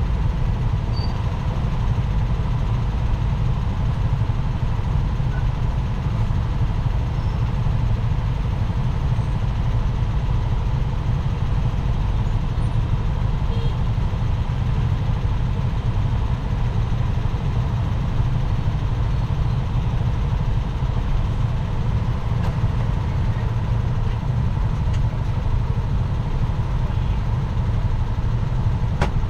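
Steady low rumble of a car driving along a city street: engine and tyre noise without breaks, with a faint steady high tone.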